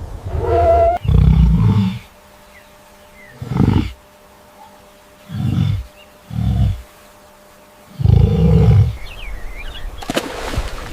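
A large wild animal giving a series of short, deep roaring grunts, about seven calls with pauses of a second or two between them.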